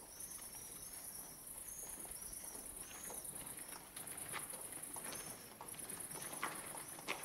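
Crickets chirping steadily, with repeated short high chirps over them. A few sharp clicks or knocks come about four and a half seconds in and again near the end.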